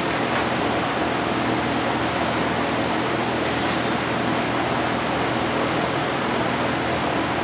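Steady, loud rushing noise of a running fan, with a low hum underneath.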